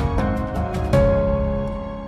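Background music: a run of notes, then a held chord from about a second in that slowly fades away.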